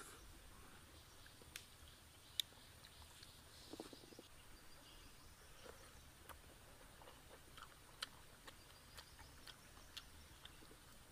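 Faint chewing of fried banana flower: soft scattered crunches and mouth clicks, two of them sharper than the rest.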